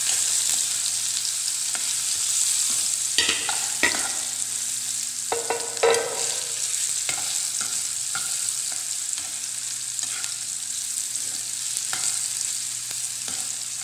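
Parboiled bitter gourd pieces sizzling in hot oil in a pan, the water in them cooking off, while a spatula stirs and turns them. The spatula scrapes and knocks against the pan several times, loudest around three and six seconds in.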